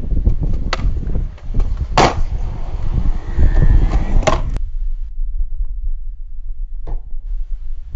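Skateboard wheels rolling on concrete, with sharp clacks of the board. The rolling drops to a quieter rumble after about four and a half seconds, and one more sharp clack comes near the end.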